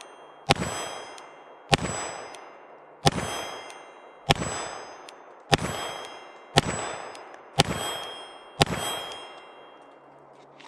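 Glock 34 9mm pistol with a ported barrel firing eight shots at a steady pace of about one a second. Each shot is followed by the high, lingering ring of a struck steel target.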